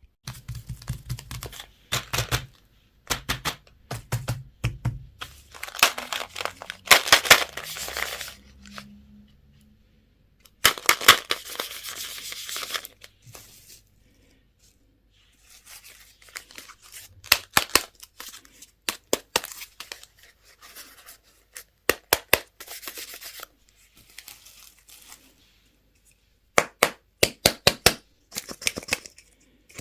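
Candy and toy packaging being torn open and crinkled by hand, in bursts of sharp crackling and tearing with short silent pauses between them.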